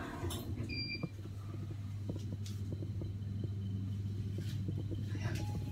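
Passenger lift car travelling down: a steady low hum and rumble from the moving car, with a short high beep about a second in.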